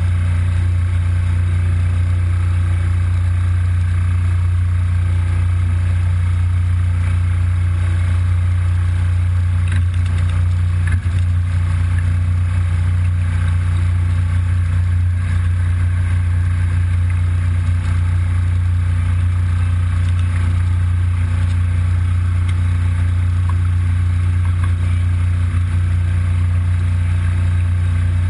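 A small engine on board an inflatable rescue boat runs at an even speed: a steady, strong low hum that does not change.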